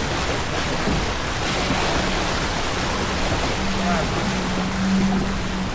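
Wind rushing over the microphone and water washing along the hull of a sailing boat under way, a steady rushing noise. A steady hum joins about two seconds in and grows stronger in the last part.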